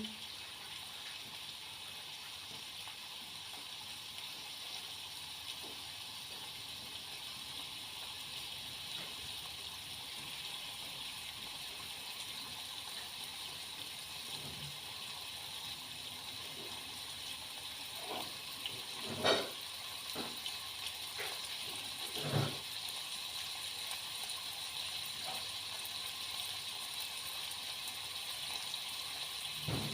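Bacon sizzling in a hot frying pan, a steady hiss, with a couple of knocks about two-thirds of the way through.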